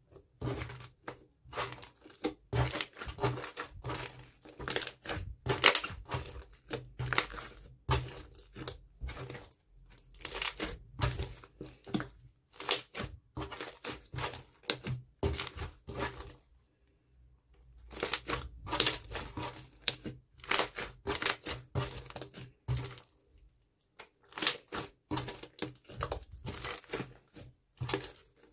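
Blue bead-filled slime being squished, poked and stretched by hand, giving quick runs of wet pops and crackles. Two short pauses break it up, one a little past halfway and one near the end.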